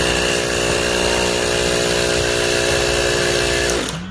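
Electric battery-powered hand pump running steadily as it inflates a bicycle inner tube, then cutting off shortly before the end.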